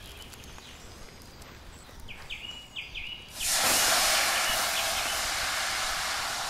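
Liquid hitting a hot cast-iron skillet and sizzling: a sudden loud hiss starts about three and a half seconds in and carries on, slowly easing. Before it, quiet outdoor ambience with a few short chirps.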